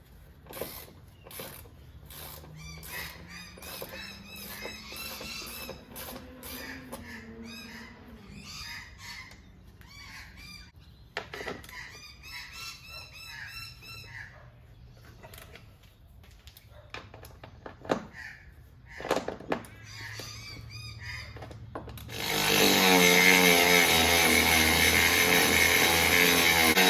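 Birds calling and chirping, with a few knocks. About 22 seconds in, a power tool starts up and runs loud and steady, cutting into the fibreglass-and-plywood boat transom.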